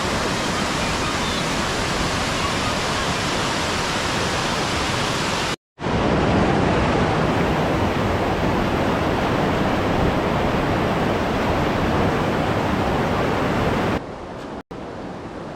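Steady rushing of a mountain creek's cascading waterfall. It cuts out for a moment about five and a half seconds in, then comes back quieter near the end.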